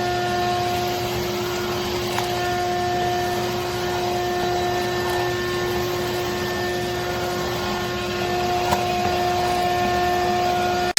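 Craftsman CMXEVBE17595 16-gallon, 6.5 peak HP wet/dry shop vac motor running steadily: a constant whine over the rush of air.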